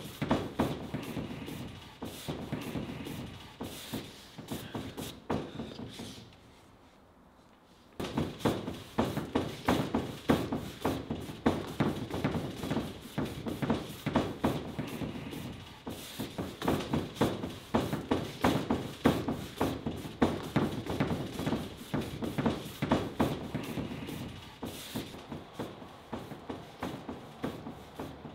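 Thin plastic wrapping sheet crinkling and rustling as it is pulled and gathered up by hand, a dense run of irregular crackles with a lull about six seconds in.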